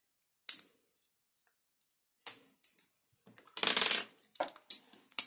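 Loose plastic Lego bricks clicking and clattering against each other as a hand rummages for a piece, with a single click early, a longer rattle a little past halfway, and a few sharp clicks near the end.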